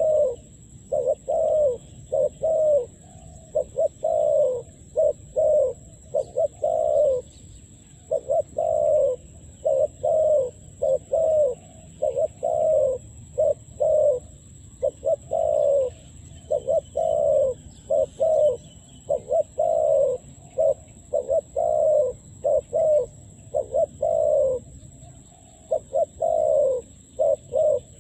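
Dove cooing over and over: a long run of short, low, slightly falling coos, several a second, with brief breaks about eight seconds in and near the end. This is a decoy dove calling to lure wild doves. A faint steady high whine runs underneath.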